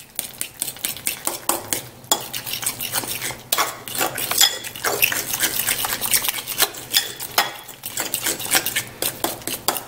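A utensil stirring and mashing thick egg-yolk filling in a ceramic bowl, with quick, irregular clicks and scrapes against the bowl's sides.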